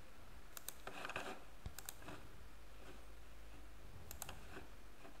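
Computer mouse clicking a few times, some clicks in quick press-and-release pairs, faint over a low steady room hum.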